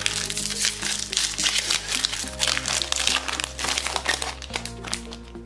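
Foil wrapper of a trading-card pack crinkling as it is handled and opened and the cards are pulled out, with background music underneath.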